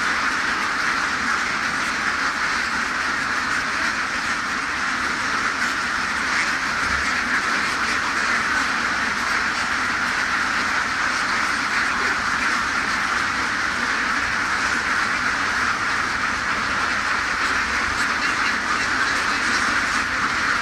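A large flock of domestic laying ducks quacking all at once, a dense, steady din with no let-up.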